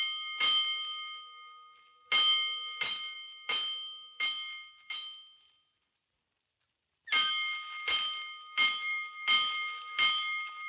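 Fire-alarm gong struck in groups of five, a stroke about every 0.7 s, each stroke ringing out and dying away: a five-bell alarm signal. Two full groups sound, with a short silent pause between them.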